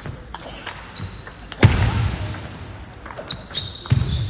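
Table tennis rally: short sharp clicks of the celluloid ball off the bats and table, with shoes squeaking on the hall floor. Two heavy thumps come about a second and a half in and again near the end.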